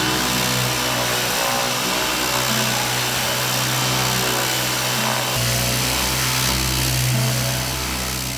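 Electric random orbital sander running steadily on plywood, a continuous whirring hiss with a low hum that grows louder about five seconds in. Background music plays faintly underneath.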